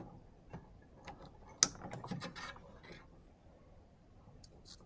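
Small plastic clicks and rattles of a 2-pin power connector and its cord being handled and plugged together, with one sharp click about one and a half seconds in.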